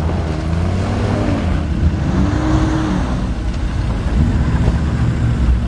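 Engine of an old military jeep revving up and down under load as it churns through deep mud, its pitch rising and falling several times over a steady low rumble.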